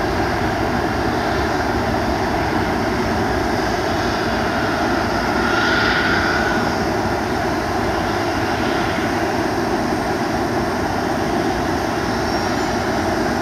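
Antonov An-124's four turbofan engines at takeoff power, a steady distant jet roar as the freighter lifts off and climbs. The sound swells slightly about six seconds in, with a brief higher whine riding on it.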